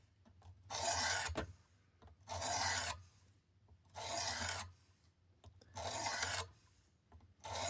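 Sharpening stone of a Work Sharp Precision Adjust sharpener drawn along a knife blade with light pressure, stone on steel: five smooth strokes, each under a second, about every one and a half seconds.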